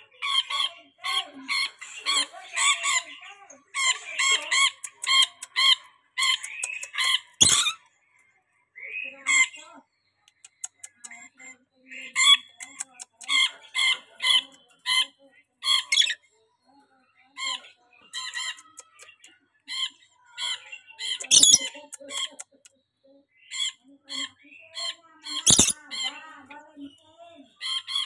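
Pet lorikeet squawking and chattering in runs of short, rapid, repeated calls broken by brief pauses, with a few sharp clicks.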